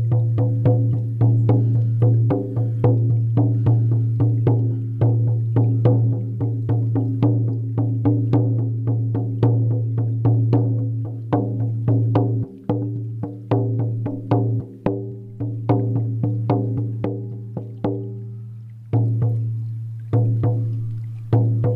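14-inch deerskin hand drum on an ash wood frame, beaten steadily with a firm beater at about three strokes a second. Each stroke rings out in a deep, sustained tone that carries between hits. The strokes slow and thin out over the last few seconds, and the final one is left to ring.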